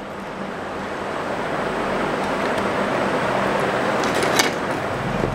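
Steady background hiss that grows gradually louder, with one light click about four seconds in.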